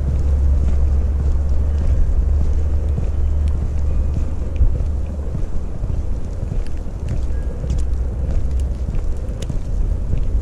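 Wind buffeting the microphone of a body-worn camera: a loud, steady low rumble, with a few faint crackles in the second half.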